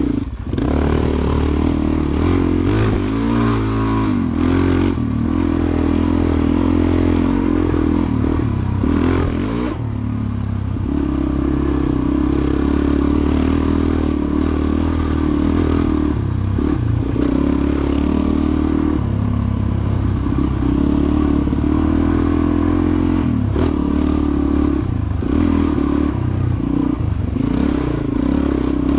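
Suzuki DR-Z400 dirt bike's single-cylinder four-stroke engine running off-road, its pitch rising and falling with the throttle, with a brief dip near the start.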